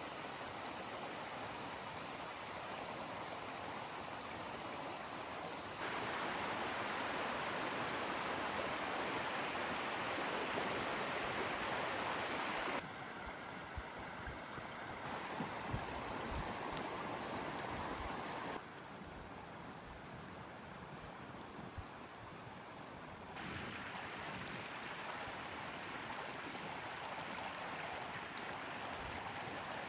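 Steady rushing of flowing water, in several short clips cut together, so the level and tone jump abruptly every five seconds or so.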